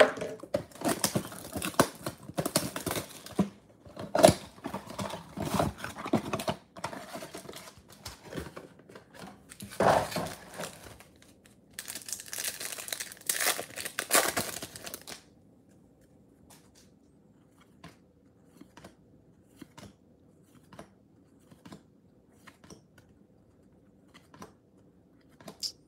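A cardboard trading-card box pulled open and the card packs' wrappers crinkled and torn, with loud tearing bursts at about ten seconds and from twelve to fifteen seconds in. After that only faint, sparse clicks of cards being handled.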